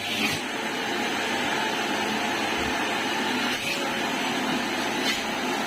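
Vacuum cleaner running steadily, with a few soft bumps.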